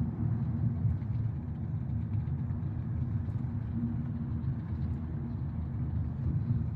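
Steady low rumble of tyres and engine inside a car cabin moving along a freeway.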